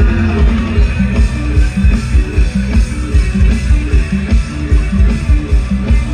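Loud band music playing an instrumental passage with a strong, steady bass beat.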